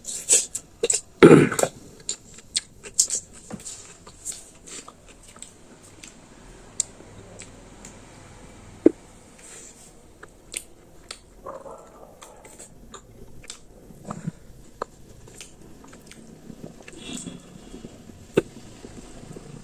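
A person chewing and biting into chicken pizza: irregular mouth clicks and smacks, louder in the first second or so and sparser after.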